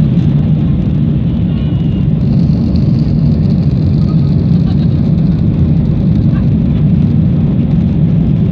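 Cabin noise inside a Boeing 737-800 moving on the ground: the CFM56-7B jet engines and airframe give a loud, steady low rumble.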